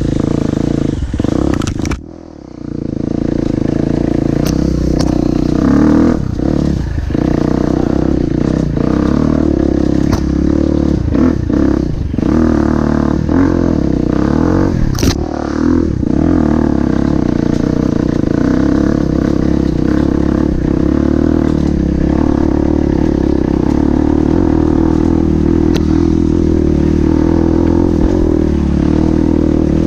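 Off-road motorcycle engine running steadily at low revs on a rough downhill trail, with frequent knocks and clatter from the bike jolting over the ground. The engine drops off briefly about two seconds in, then picks up again.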